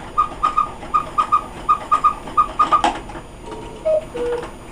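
Quail cuckoo clock striking the hour: its bellows sound the quail call, four quick groups of three short whistled notes, then near the end the two-note cuckoo call begins, a higher note followed by a lower one. The bellows have new leather.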